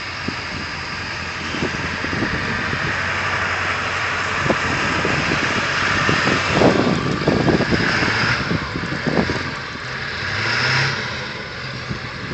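Car engine revving under load as it tries to climb a snowy hill, with a hiss that builds and swells twice, typical of tyres spinning in snow.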